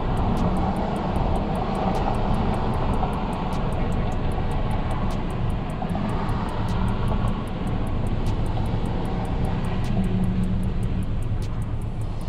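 Car engine idling in a drive-thru line, heard from inside the cabin as a steady low hum with outdoor noise around it.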